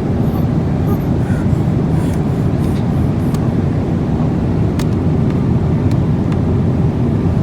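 Steady low rumble of an airliner cabin in flight, even and unbroken, with a few faint clicks over it.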